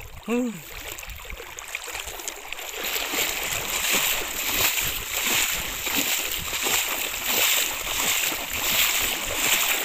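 Shallow seawater splashing as legs wade through it, with a step roughly every two-thirds of a second. The splashing grows louder about two and a half seconds in.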